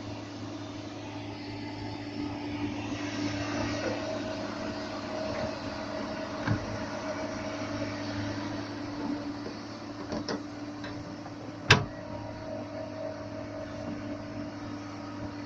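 Excavator's engine running steadily, with a few sharp knocks; the loudest comes late, about twelve seconds in.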